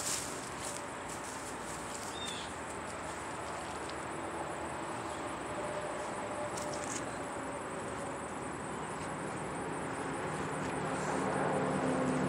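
Insects trilling steadily and high over a steady hiss of distant traffic, with a few faint clicks. A vehicle grows louder near the end as it passes.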